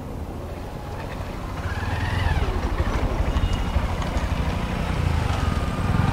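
A motor vehicle's engine running, growing louder over the first two seconds as it draws near and then staying steady, with a whine that rises and falls in pitch.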